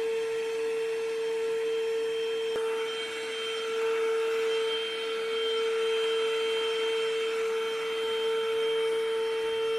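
Upright carpet washer running while pushed over a wet rug: its motor gives a steady high whine over an even hiss of suction.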